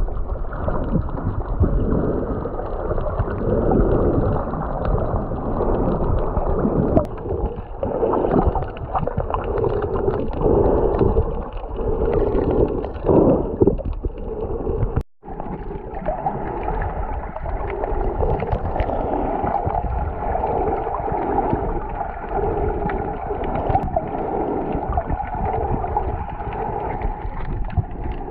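Muffled underwater water noise from a submerged camera, irregular sloshing and gurgling as the snorkeler swims, with a brief break about halfway through.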